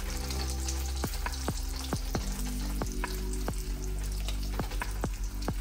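Sous vide ribeye steak sizzling steadily as it sears in a hot oiled pan over medium-high heat.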